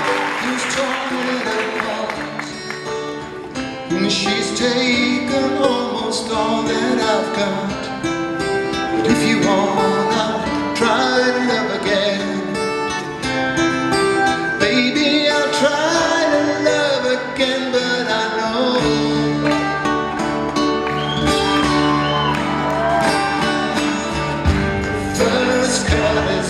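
Live acoustic guitar with a backing band playing without words, low bass notes coming in about two-thirds of the way through.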